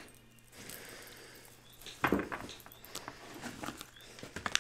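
A deck of tarot cards being picked up and shuffled. Soft clicks, taps and riffling start about two seconds in.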